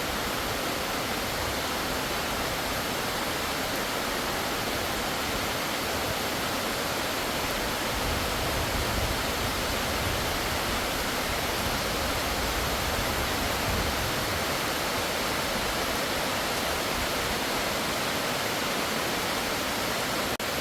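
Rushing water, a steady even roar without breaks, like a waterfall or fast stream close by, with a little extra low rumble in the middle.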